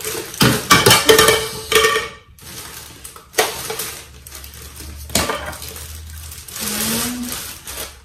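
Plastic bag crinkling and cardboard packaging rustling as a hair dryer is unwrapped and pulled out of its box, loudest in the first two seconds, with two sharp knocks in the middle and a softer rustle near the end.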